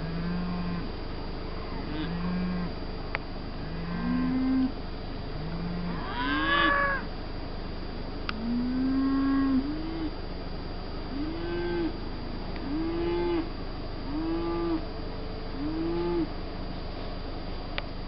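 A calf mooing in a string of about ten short bawls, one every second or two, each rising and then falling in pitch. The loudest bawl comes about six seconds in.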